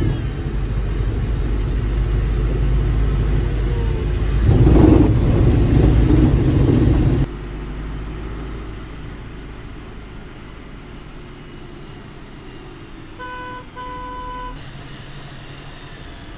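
Low engine and road rumble heard from the front cabin of an Eicher-chassis sleeper coach driving through city traffic, growing louder for a couple of seconds. About seven seconds in it drops suddenly to a quieter rumble. Near the end a vehicle horn toots twice.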